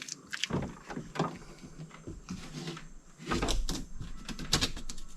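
Window glass being let down by hand in its tracks inside a Ford Expedition's front door, scraping and knocking, with a low rumble in the second half.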